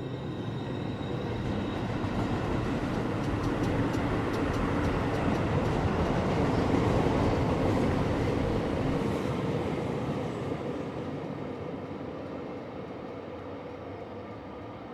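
Commuter train running along the track as it pulls away. The wheel rumble grows louder for about seven seconds, then fades, with faint rapid clicks in the middle.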